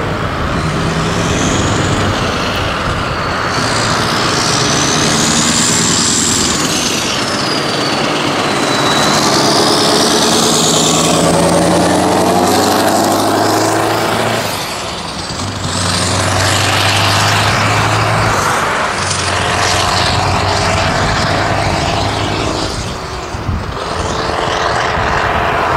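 Scania R500 V8 diesel truck with an open (howler) exhaust pipe, pulling away and accelerating past, its loud engine note climbing and falling back twice as it goes through the gears.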